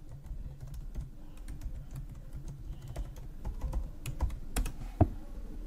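Computer keyboard typing: irregular key clicks as a password is typed, with a couple of louder clicks near the end.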